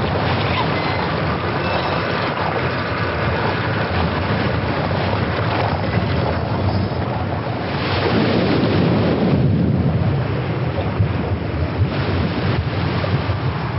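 Designed sound effects of a large ship sinking: a dense, deep rumbling roar that swells louder about eight seconds in, with a few sharp cracks near the end.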